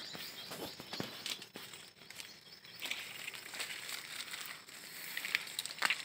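Leaves and grass rustling and crackling as someone pushes through brush, with scattered sharp snaps and ticks.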